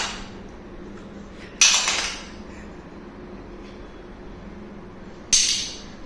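Two sudden sharp knocks or clatters, a little under four seconds apart, each dying away within about half a second.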